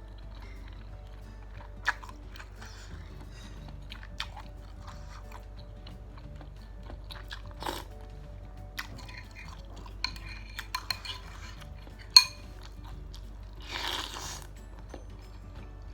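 Eating at a bowl of chicken noodles and meatballs: a spoon or chopsticks clinking against the bowl several times, the sharpest clink about twelve seconds in, with chewing and a short burst of noise near the end. Faint background music runs underneath.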